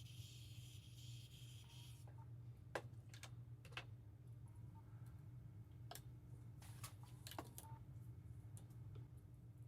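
Faint steady hiss of a handheld torch flame heating a stuck, thread-locked retaining nut, cutting off about two seconds in. After it, a few scattered light clicks and taps over a low steady hum.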